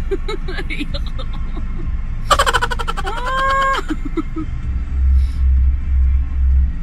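Low rumble of a vehicle cabin with a television broadcast playing. A little over two seconds in, a voice lets out one long cry that rises in pitch and then holds for about a second.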